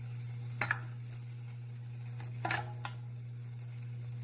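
Chicken sautéing in a pan with a faint sizzle over a steady low hum, and a spatula scraping against the pan twice, once about half a second in and again around two and a half seconds in.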